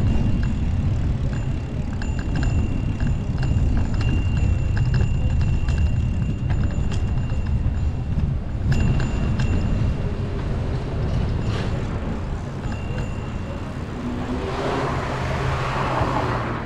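Wind rumbling on the microphone with road noise during a ride, with a thin high whine that comes and goes. A vehicle hisses past near the end.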